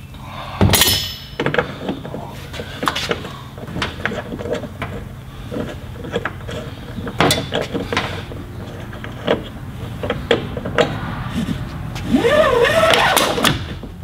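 Clanks, knocks and clicks of metal parts and hand tools being worked on a truck luggage door's latch and hinge, opening with a loud ringing clank about a second in. A brief wavering sound comes near the end.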